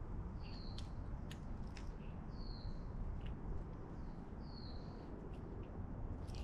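A bird calling: a short high call repeated about every two seconds, with a few fainter chirps and ticks, over a steady low background rumble.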